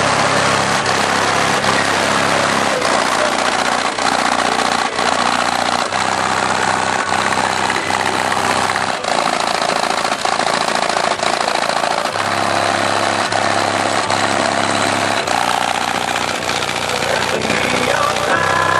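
Car audio demo system playing a bass-heavy track at high volume, its low bass notes stepping from one pitch to another with a beat about once a second.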